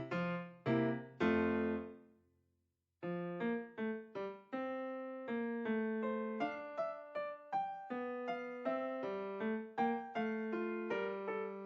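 Background music: an electric piano tune of struck notes at an even pace, breaking off to silence for about a second a couple of seconds in, then starting again.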